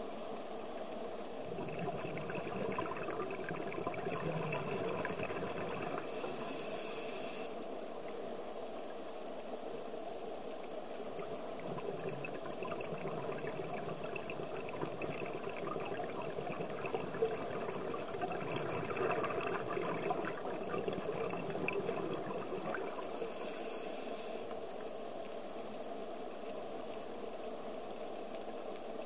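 A scuba diver's regulator breathing, heard underwater through the camera housing: long bubbling exhalations alternate with two short hissing inhalations, over a steady underwater hiss.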